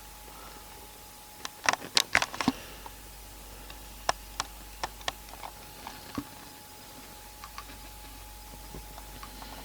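A quick cluster of sharp clicks and taps about one and a half seconds in, then single clicks scattered through the next few seconds, over a faint steady high-pitched hum.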